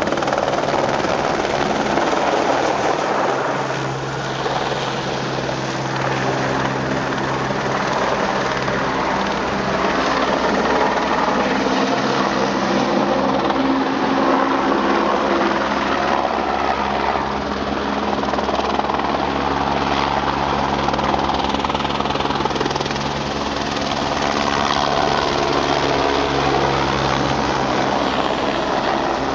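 Light helicopter flying low overhead, its rotor and turbine making a steady drone that eases slightly twice.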